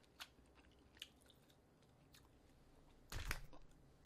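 Faint mouth sounds of a person chewing a bite of thin-sliced beef brisket (chadolbaegi): a few soft wet clicks, then a short, louder noisy patch about three seconds in.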